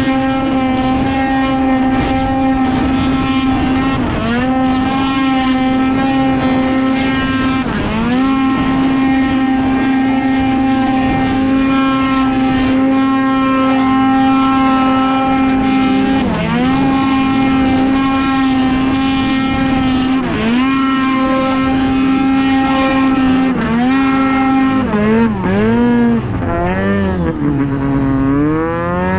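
Arctic Cat Catalyst snowmobile's two-stroke engine at wide-open throttle, its note held at one steady pitch by the Speedwerx clutching, dipping briefly every few seconds. Near the end the revs drop and climb several times in quick succession.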